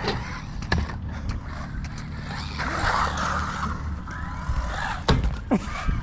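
Arrma Typhon Grom RC buggy running on skatepark concrete: its small electric motor whining and revving, rolling tyre noise, and a few sharp knocks as it hits and lands, over a steady low rumble of wind on the microphone.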